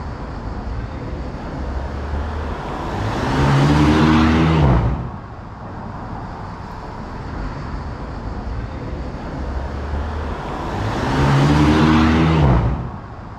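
Street traffic: two motor vehicles drive past, one about four seconds in and another near the end. Each swells and fades, its engine note dropping in pitch as it passes, over a steady traffic hum.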